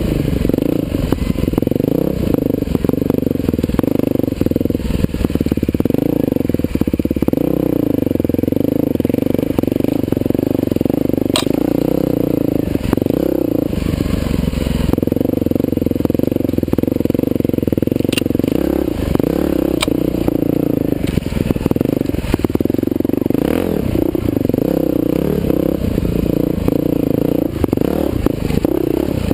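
Husqvarna TE511 dirt bike's single-cylinder four-stroke engine running under varying throttle, with a few sharp clicks partway through.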